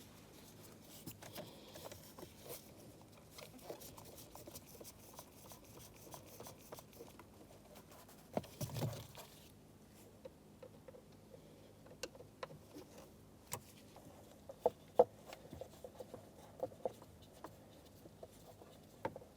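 Scattered small clicks and taps of parts and tools being handled, with a brief rustle about halfway through and the sharpest click about fifteen seconds in.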